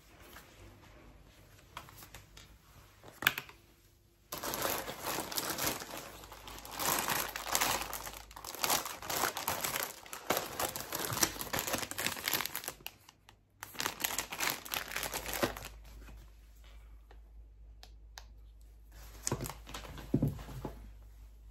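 Thin plastic shopping bag crinkling loudly as it is handled and rummaged through, starting about four seconds in and running for about eleven seconds with a brief pause, then only faint rustles near the end. A single sharp click comes just before the crinkling starts.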